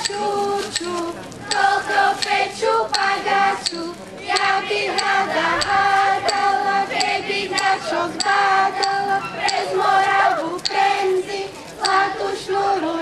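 A group of children singing a folk dance song together in chorus, in a steady rhythm.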